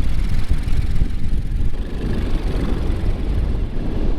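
Motorcycle riding two-up with a passenger on the back, its engine running under wind rumble on the microphone.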